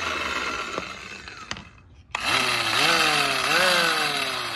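Makita 21 mm electric chisel (demolition hammer) running with no load. It eases off about a second in, there is a click, and it starts again loud about two seconds in. Its pitch then jumps up and sags again and again, about every two-thirds of a second.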